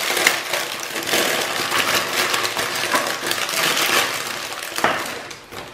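Clear plastic bag crinkling and rustling steadily as hands open it and handle the hard plastic parts inside, dying down near the end.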